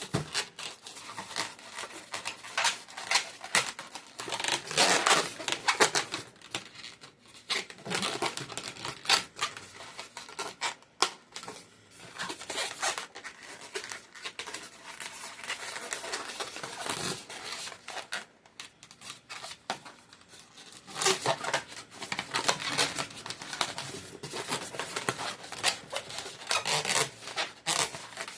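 Latex twisting balloons being handled and worked: irregular rubbing, crinkling and clicking, in uneven bursts with short lulls.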